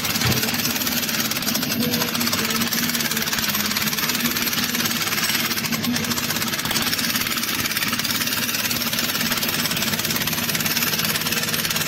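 JCB tracked excavator's diesel engine running steadily under load while its arm and bucket dig out soil in a trench.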